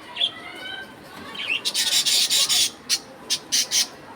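Budgerigars chirping, then a loud harsh screech about a second and a half in, followed by a run of short harsh squawks.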